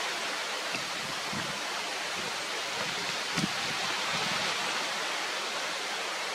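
Steady rushing outdoor noise with no birdsong or calls, and a brief low thump about three and a half seconds in.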